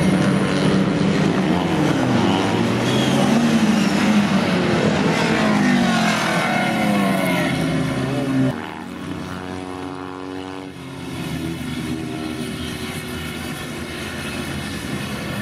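Engines of several small historic racing saloons, classic Minis among them, revving hard through the gears as they race past, their notes rising and falling over one another. About eight and a half seconds in the sound cuts suddenly to a quieter, steadier engine drone.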